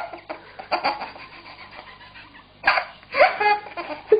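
A man laughing in short bursts with quiet gaps between, ending in a quick stuttering laugh near the end.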